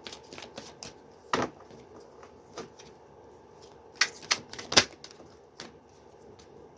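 A tarot deck being handled: a run of irregular sharp clicks, with a louder cluster of three about four seconds in.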